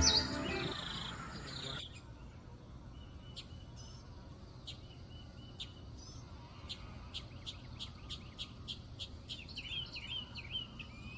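Background music that stops about two seconds in, then small birds chirping, with short high calls coming more often in the second half.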